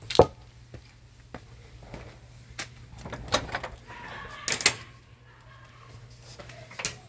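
Scattered sharp knocks and clicks, the loudest one right at the start and a small cluster about halfway through, over a low steady hum.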